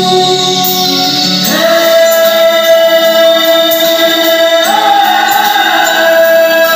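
Music with singing: long held notes that step up in pitch about a second and a half in and again near five seconds.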